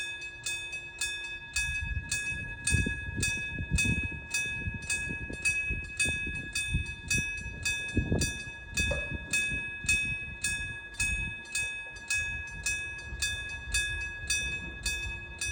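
Electric-bell level crossing signal, a metal gong struck about twice a second with a ringing tone. A train rumbles and thumps through the crossing underneath the bell.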